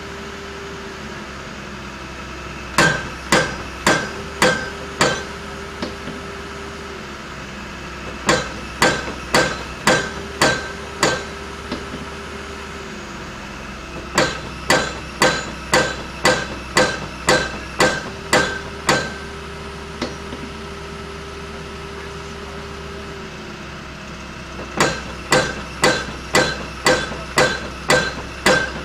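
Dawson pile-driving hammer striking a pile in runs of about six to eleven blows, roughly two a second, each blow a sharp metallic impact with a short ring. Between the runs there are pauses of a few seconds filled by a steady hum.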